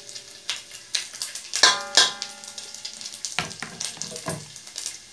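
Pieces of pork sizzling and crackling in hot oil in a metal wok, with many small pops. About one and a half to two seconds in, two loud metallic clanks ring out, followed by a few softer knocks.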